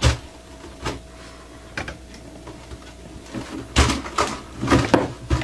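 Handling noise from a stiff wet-formed leather helmet being turned and worked by hand while its cord laces are adjusted: a sharp knock at the start, a few light taps, then a run of knocks and scraping in the last second and a half.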